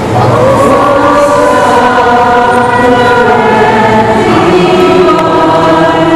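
Many voices singing a slow hymn together in long, held notes.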